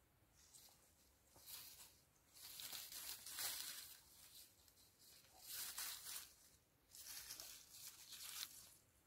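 Faint rustling in four swells of one to two seconds, the loudest about three seconds in: a cord and thin antenna wire being hauled up through the branches of a tree.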